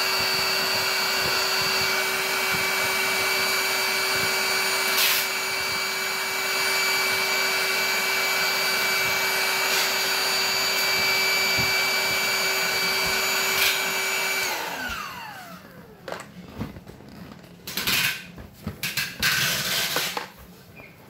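Handheld electric air pump running steadily with a whine while inflating a vinyl inflatable pool. About 14 seconds in it is switched off and its whine falls in pitch and dies away. Irregular clicks and knocks follow as the pump and the pool are handled.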